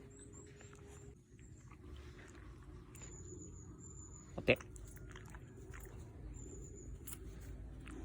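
Shiba Inu making small chewing and mouth sounds, with one short, sharp sneeze about four and a half seconds in.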